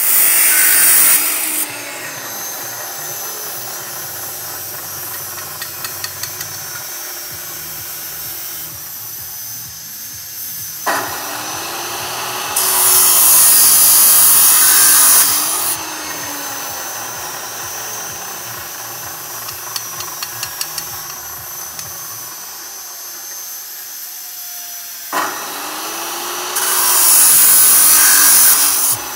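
Maktec abrasive cut-off saw cutting galvanized light-steel profile: three cuts, at the start, about halfway and near the end, each much louder and harsher as the disc grinds through the metal. Between the cuts the motor keeps running with a steady high whine, and there are a few light clicks.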